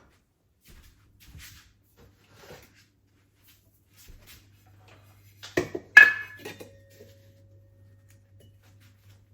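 Kitchen handling sounds: soft scattered taps and clicks, then two sharp clinks of crockery or glass a little over halfway through, the second ringing briefly. A faint low hum runs underneath from about four seconds in.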